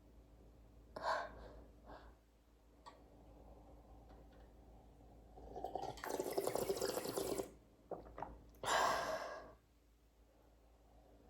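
Close, wet stomach gurgles from a girl's belly after drinking chocolate milk: two short gurgles, then a long bubbly, crackling gurgle of about two seconds in the middle. Near the end comes a louder breathy gasp.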